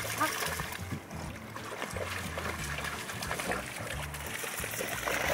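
German shepherd dogs splashing and wading through shallow lake water.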